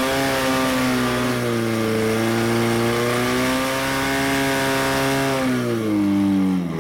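Portable fire pump's engine running hard at high revs, held steady while it drives water through the attack hoses, then the revs drop away near the end.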